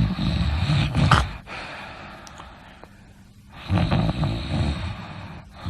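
A person snoring: a loud snore at the start that ends in a sharp snort about a second in, a quieter stretch of breathing, then a second snore about four seconds in.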